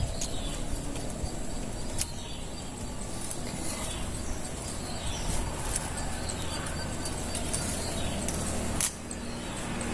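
Steady outdoor background noise with the low hum of passing road traffic, which grows toward the end, and a few faint sharp clicks.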